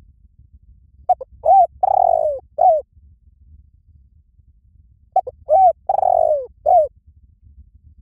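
Spotted dove cooing, two calls about four seconds apart. Each call is a couple of short coos, one longer, rougher coo and a short closing coo.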